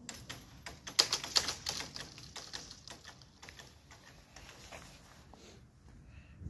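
Level-crossing barrier booms with hanging mesh skirts clattering as they come to rest after lowering: a quick, irregular run of rattling clicks, loudest about a second in, then thinning out.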